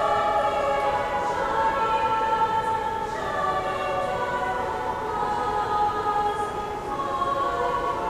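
Girls' high-school choir singing long held notes that change pitch every second or two, echoing in a marble hall.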